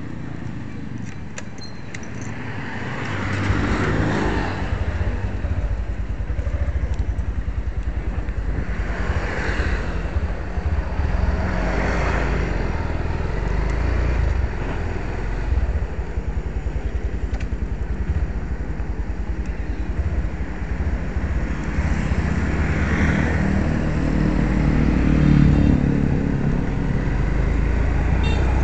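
A Honda Verza motorcycle's engine runs steadily while it is ridden along a street, under wind on the microphone, with other traffic swelling past several times. The owner says the bike runs on thick Mesran B diesel engine oil, which he says makes it sound smooth.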